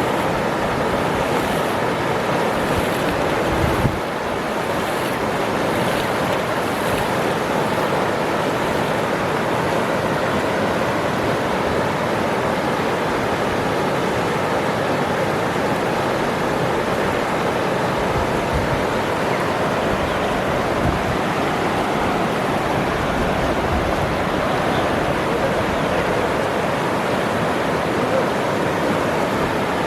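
Waterfall: a steady, even rush of falling water, with a brief low thump a little under four seconds in.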